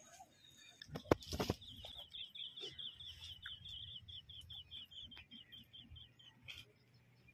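A bird calling in a rapid series of short, high chirps, about four or five a second, each dropping slightly in pitch, for about five seconds. Just before the calls begin, about a second in, come two or three sharp knocks, the loudest sounds here.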